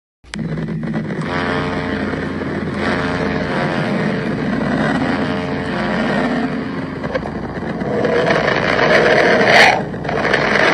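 A space-sound recording presented as the 'sound' of a planet: a dense, noisy drone with several steady tones, growing louder toward the end, with a sharp crackle near the end, then cutting off abruptly.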